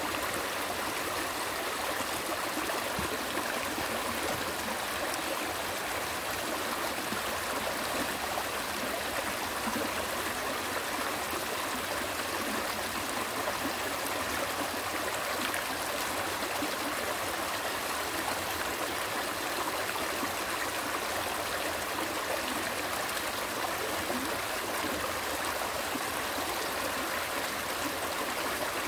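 Mountain stream flowing over rocks: a steady, even rush of running water with trickling and gurgling.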